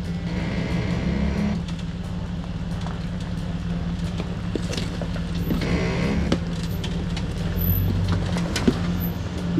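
Toyota 4Runner's engine running steadily at low revs while crawling over a rocky trail, with scattered knocks and two short creaking squeals, one about a second in and one around six seconds in.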